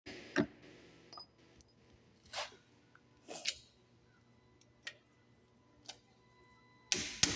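Scattered clicks and light knocks of tools and parts being handled at a car brake job, about seven separate ones, with a louder pair near the end.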